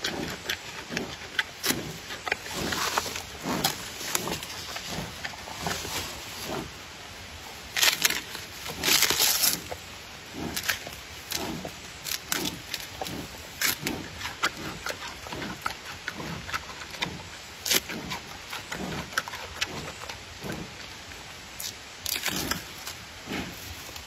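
Giant panda chewing and crunching bamboo, with steady chewing at about two bites a second and sharp cracks of splitting bamboo. A louder run of splintering comes about eight to nine seconds in.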